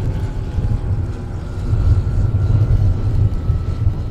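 Engine of a radio-controlled Dewoitine D.26 scale model airplane droning overhead in flight, its tone falling slightly as it passes, over a strong low rumble.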